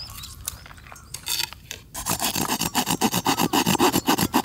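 Handsaw cutting a notch into a piece of firewood to start a split: a few light scrapes, then rapid back-and-forth sawing strokes from about halfway in.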